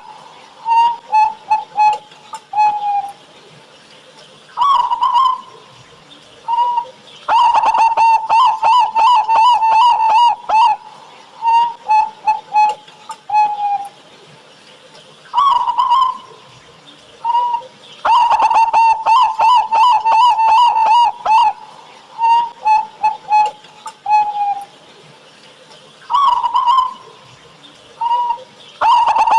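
Zebra doves (local perkutut) cooing: phrases of quick stuttering notes and longer coos, recurring about every ten seconds with short pauses between.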